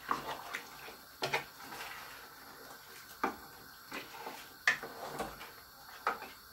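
A serving spoon stirring a thick meat-and-pepper stew in a metal pot, knocking against the pot several times at uneven intervals, about eight knocks in all, over a faint steady hiss.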